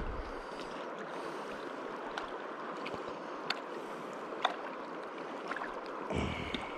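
Steady rush of a river flowing over rocks, with a few small faint clicks and a brief low rumble near the end.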